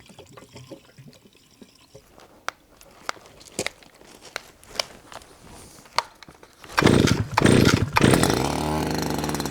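Faint clicks and knocks of handling, then a petrol brush cutter's engine is pull-started: loud sputtering bursts about seven seconds in, after which it catches and runs steadily near the end.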